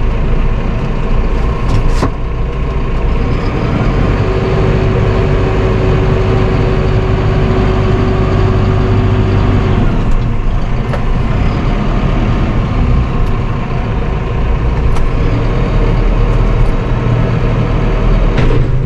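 Massey Ferguson 5S.145 tractor's diesel engine running steadily, heard from inside the cab while the FL4121 front loader is worked from the joystick. A steady whine joins in about four seconds in and stops about ten seconds in, while the loader is lifted to full height.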